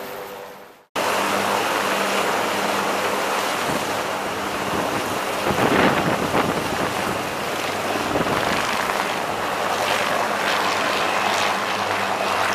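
AH-1Z Viper attack helicopter's four-blade rotor and twin turbine engines running close by, heard as a loud, steady rush of noise with wind buffeting the microphone, loudest about five to six seconds in. The sound fades out just at the start and comes back abruptly about a second in.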